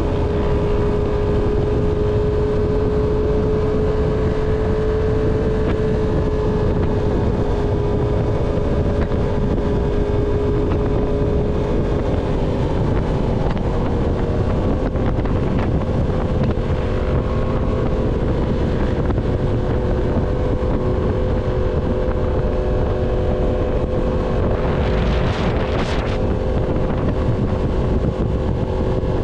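Yamaha MT-10's crossplane inline-four engine through an SC Project full-system exhaust, running steadily at cruising speed with wind noise on the microphone. The engine note shifts slightly about twelve seconds in, and a brief hiss comes near the end.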